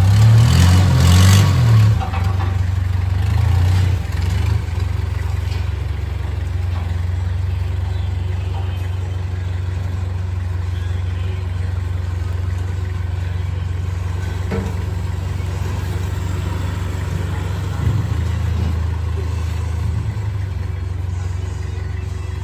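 A motor vehicle engine running steadily at idle, revved up briefly in the first two seconds.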